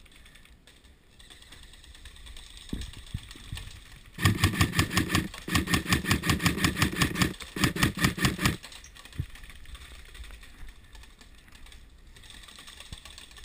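An airsoft gun firing on full auto: three rapid bursts of about ten or more shots a second, starting about four seconds in and ending about four seconds later, with short breaks between them.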